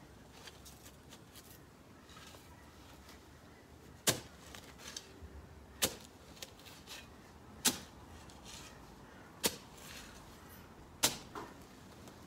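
Garden secateurs snipping through plant stems: five sharp snips about two seconds apart from about four seconds in, with fainter clicks between them.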